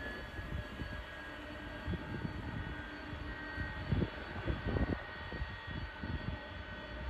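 Boeing 767 twin-engine jet airliner, with its jet engines whining steadily at a distance, over an uneven low rumble.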